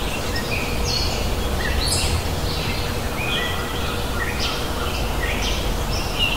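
Small birds chirping in many short, quick calls over a steady outdoor background hiss and low rumble.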